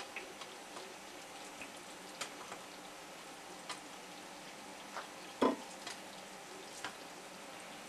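Pork ribs in a frying pan sizzling faintly, with scattered sharp pops of spitting fat. About five and a half seconds in there is a single louder knock.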